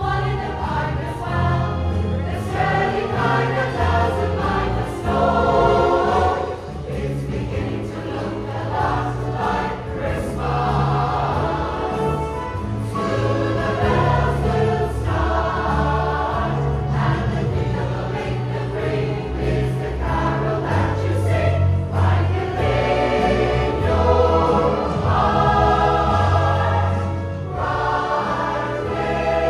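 A choir singing together over amplified backing music from a floor speaker, with a steady bass line under the voices.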